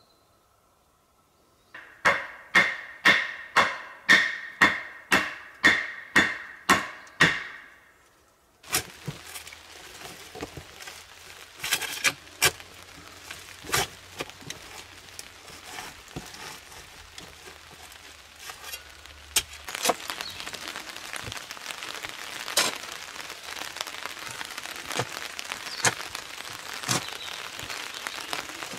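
About a dozen loud, ringing blows from a metal tool, about two a second. Then footsteps in boots crunch over the leaf-littered forest floor, and near the end a shovel digs and scrapes into the soil.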